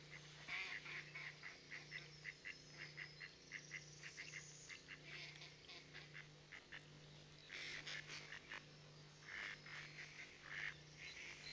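Mallards calling: a quick run of short, soft quack-like notes, about three a second. After a pause past the middle, a few fuller calls follow.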